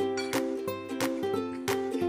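Background music: a light tune of plucked string notes, several a second.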